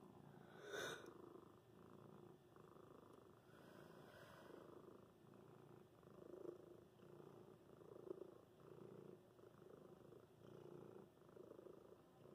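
Domestic cat purring softly in slow, even cycles while being petted, with a brief rustle about a second in.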